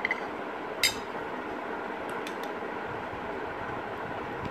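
Steel spoon clinking against a small glass bowl as a thick paste is mixed: a ringing clink at the start, a louder one about a second in, then a few faint taps around two seconds, over a steady background hiss.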